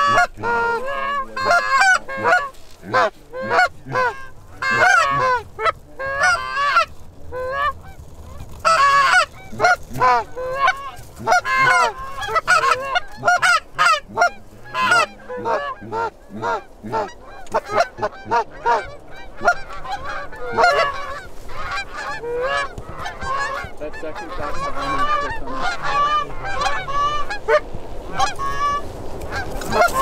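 A flock of Canada geese honking, many short calls overlapping one another. The calls thin out in the second half, over a steady low rush.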